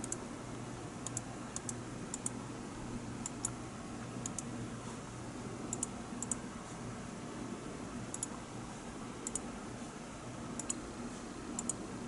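Computer mouse clicking, mostly in quick pairs and at irregular intervals, over a low steady hum.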